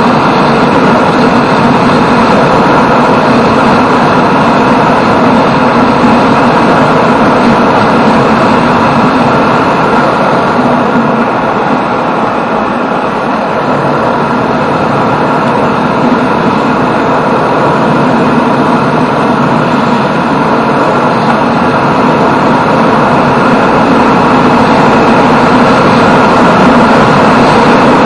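Motorcycle, a Yamaha Jupiter MX 135, riding at a steady cruising speed: the engine runs steadily under loud, even road and wind noise.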